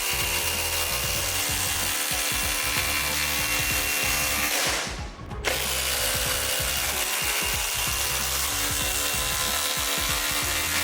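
Cordless impact driver hammering 3/8-inch by 6-inch lag bolts into stacked OSB under load: a continuous rapid rattle of impacts over the motor's whine. One drive stops about five seconds in and the next starts half a second later.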